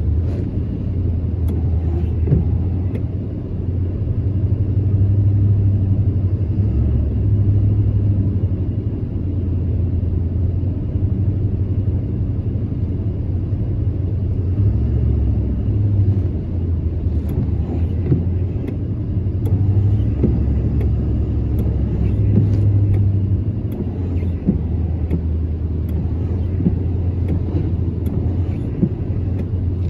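A car driving through floodwater on a road in heavy rain, heard as a steady low rumble of engine, tyres and water under the body.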